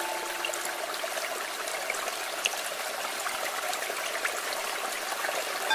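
Steady rush of flowing water with scattered tiny drip ticks. A singing bowl's ringing tone carries on for a moment at the start, then stops.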